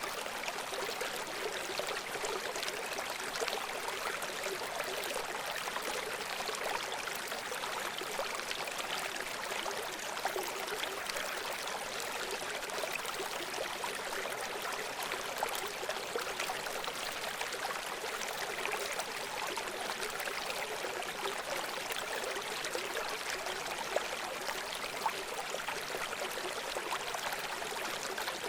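A river running over rocks: a steady, even rush of flowing water with small splashes and gurgles, with no pauses or swells.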